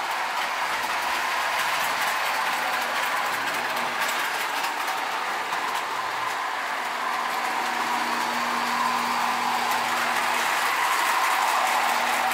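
Modern Marx tinplate toy train running on three-rail tubular track: a steady running noise of wheels and motor, getting a little louder near the end as the cars pass close by.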